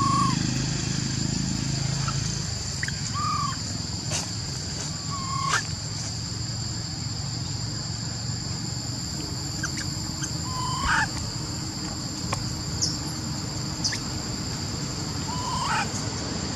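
A baby monkey gives about five short calls, a few seconds apart, each a brief note that rises and falls, some ending in a quick upward squeal. They sit over a steady high insect drone.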